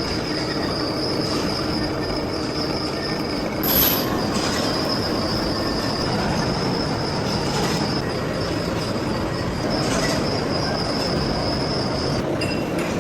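Metal-cutting machine working steel: a dense running noise with a steady high-pitched squeal over it, and one brief sharper screech about four seconds in. The squeal cuts off near the end.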